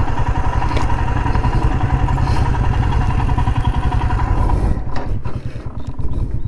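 Motorcycle engine running at low revs with a fast, even low pulsing as the bike rolls slowly and pulls over. About five seconds in, the higher whine drops away, leaving the engine ticking over with a few sharp clicks.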